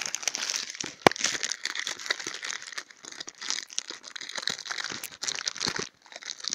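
Plastic bubble wrap being handled and crinkled by hand: a dense, crackly rustle of many small clicks, with one sharper snap about a second in and a brief pause near the end.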